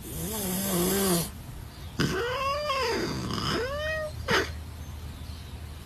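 A cat meowing: a low, wavering call at first, then two long meows that rise and fall in pitch.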